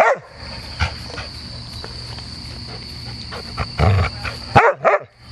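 A large dog growling and giving short barks right at the microphone: one call at the start, then a cluster of several near the end.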